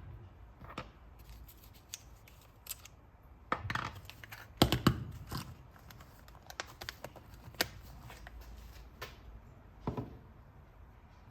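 Scattered small clicks, taps and scrapes of hand tools and metal hub parts being handled while servicing a bicycle rear wheel hub's bearings, with a louder cluster of knocks about five seconds in.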